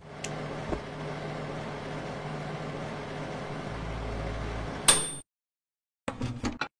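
Countertop electric oven running with a steady hum, then its mechanical timer bell dings once about five seconds in. Near the end comes a short clatter as the plate is handled on the oven's wire rack.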